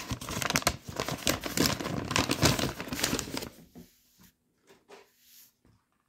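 Kraft-paper mailer envelope crinkling as it is handled, dense for about three and a half seconds, then a few faint rustles.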